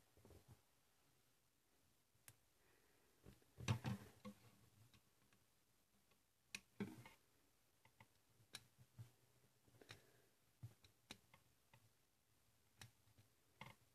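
Scattered small clicks and knocks of plastic LEGO Technic parts being handled as wheels are pushed onto the axles of a crane trolley, with the loudest cluster about four seconds in.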